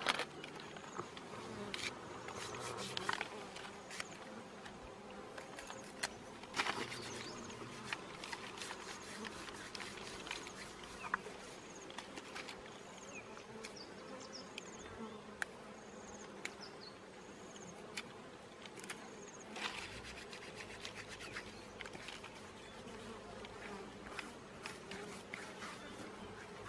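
Bees buzzing steadily around a nest in the ground, with scattered light clicks and rustles.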